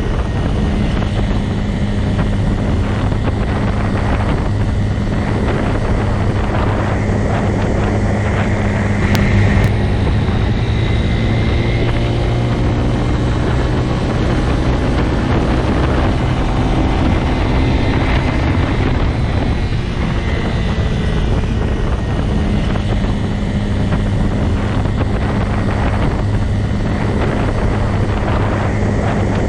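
Motorcycle engine running steadily, with a constant low pitch throughout.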